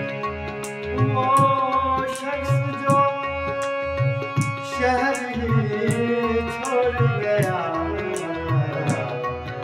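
Harmonium playing held reed chords and a melody that moves to new notes about halfway through, over a steady tabla beat of about two strokes a second.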